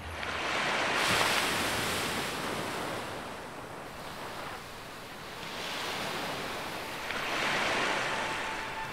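Sea surf washing onto a sandy beach: a steady rush of breaking waves that swells up about a second in and again near the end.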